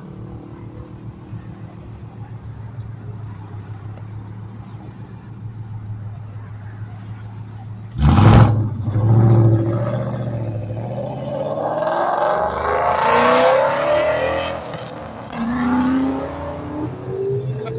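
Ford Mustang GT's 5.0 V8 idling with a steady low rumble, then a sudden loud rev at about eight seconds as it launches. The engine note then climbs in several rising sweeps as the car accelerates hard away.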